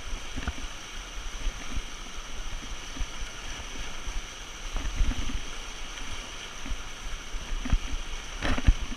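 River water rushing steadily, with scattered irregular low knocks and bumps.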